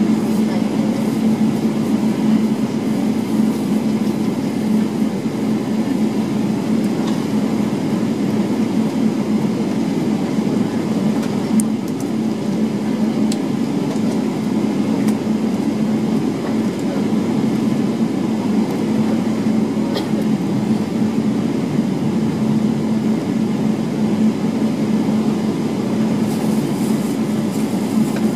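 Jet airliner cabin noise during taxi: the engines at idle give a steady, even hum.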